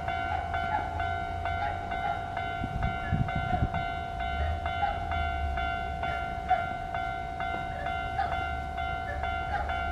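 Japanese electronic level-crossing warning bell ringing with its steady repeating tone while a train rumbles over the crossing, with a few wheel knocks about three seconds in.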